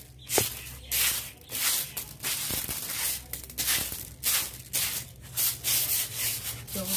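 A broom sweeping a rough ground surface in quick, repeated scratchy strokes, about two a second.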